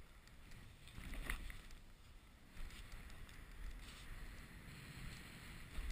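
A snowboard sliding and carving through snow, a steady hiss with a low rumble and a few brief scrapes of the board's edge.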